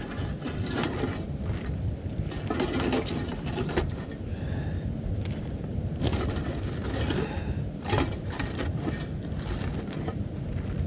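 Wood burning in a small titanium wood stove, crackling and snapping every second or two, over a steady low rumble of wind on the microphone.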